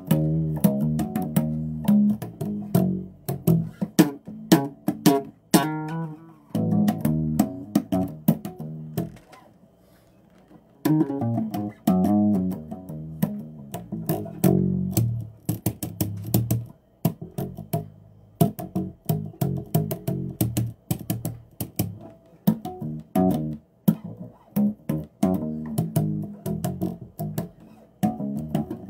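Bass guitar played solo: plucked notes and runs with sharp string clicks between them, pausing briefly about ten seconds in.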